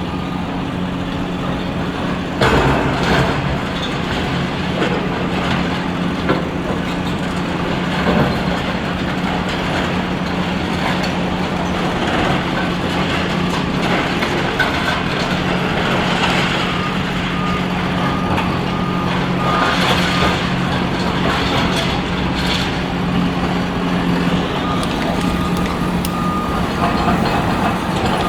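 Heavy diesel excavator engines running steadily under load while demolition debris crashes and scrapes, the loudest crash about two and a half seconds in. A reversing alarm beeps in an even series about midway and again near the end.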